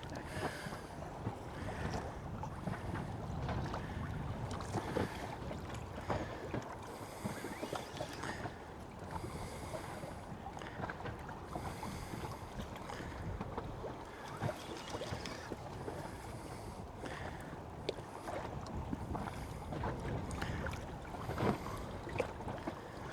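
Water slapping against the hull of a small anchored boat, with wind on the microphone and scattered light clicks and knocks. Patches of hiss return every second or two.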